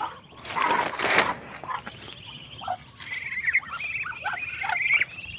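Hungry chickens calling as they crowd in to be fed, with a rapid run of short, high calls in the second half. A rustling burst of noise comes just under a second in.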